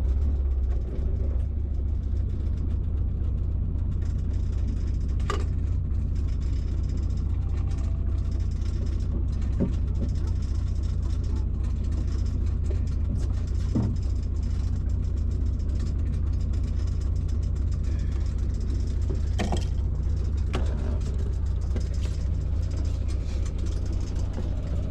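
A fishing boat's engine running steadily as a low drone, with a few sharp knocks now and then.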